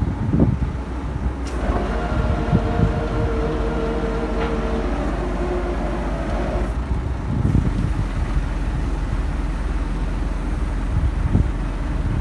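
Crane truck's diesel engine running steadily as its hydraulic crane lifts a heavy load. A steady whine joins in about a second and a half in and stops after about five seconds, with a few light knocks of chain and rigging.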